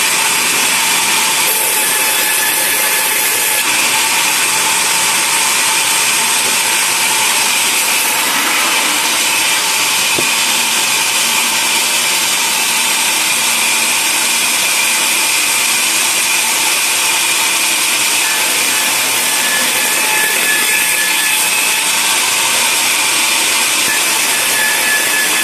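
Sawmill band saw running steadily through a log, a constant loud saw noise with a high whine held on top. There is one short knock about ten seconds in.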